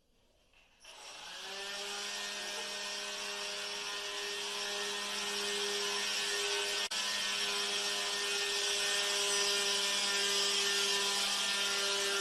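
A steady mechanical whirring: a constant low hum with hiss above it, starting about a second in, with a momentary break about seven seconds in.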